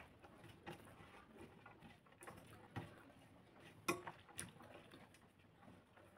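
Faint eating sounds: fingers mixing rice on a plate, with scattered soft clicks and taps, the sharpest about four seconds in.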